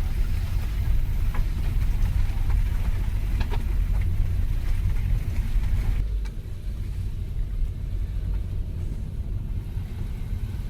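Steady low rumble of a car driving, heard from inside the cabin; a fainter hiss over it drops away about six seconds in.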